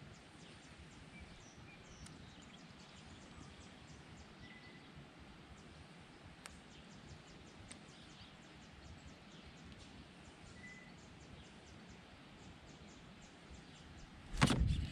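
Quiet outdoor lake ambience: a faint steady background with a regular light ticking, about three ticks a second, and a few brief high chirps. A sudden loud thump comes near the end.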